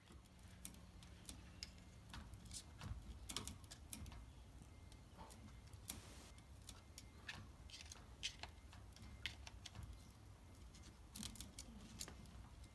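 Faint, irregular clicks and taps of a pet-door flap knocking against its frame as a cat paws and pries at it.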